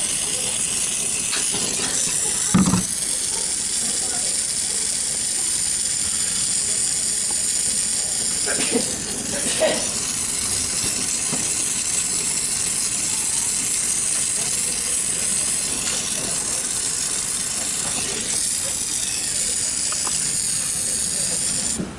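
Steady high hiss of escaping gas, with a brief knock about two and a half seconds in and a couple more near ten seconds; the hiss cuts off suddenly near the end.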